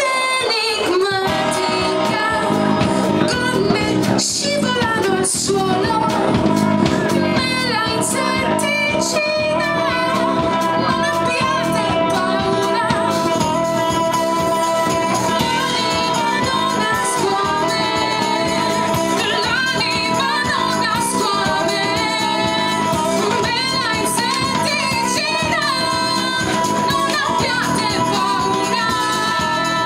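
Live rock band playing: a woman sings over electric guitar, electric bass and drums.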